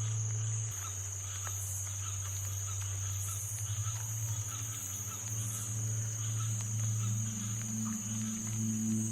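Ambient background music with a low sustained drone, overlaid with a steady high insect chirring like crickets and faint small chirps.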